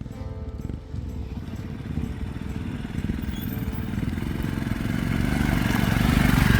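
Motorcycle engine running at low revs, growing gradually louder over the last few seconds.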